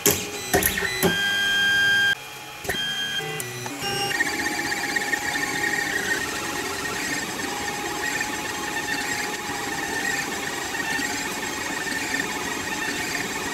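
3D printer running a print: stepper motors whining in short tones that jump in pitch, with a few clicks, over the first few seconds. After that comes a steady hum of fans and motors with a faint wavering whine.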